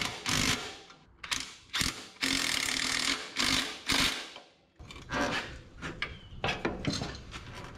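Hand tools and metal parts clattering during work on a transmission mount: irregular knocks and clicks, with about a second of continuous rattling noise around two seconds in.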